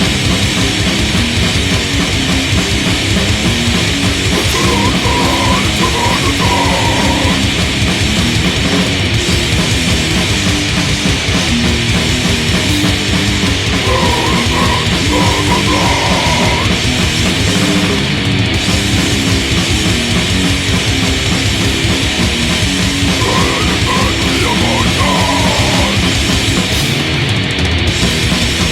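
Loud, heavily distorted punk/metal band music: full band with distorted guitars and drums playing densely, with a higher line coming in three times over the top.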